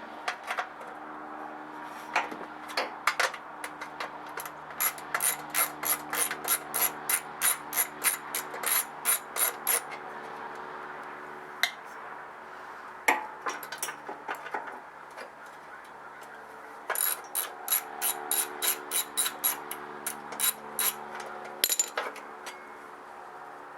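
Ratchet wrench clicking in two long runs of about three to four clicks a second, with a few single knocks between them, as the bolts holding an ETQ generator's recoil starter housing are worked loose. A steady low hum lies underneath.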